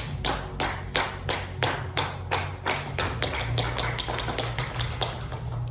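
Evenly spaced sharp taps or claps, about three a second, fading near the end, over a low steady hum.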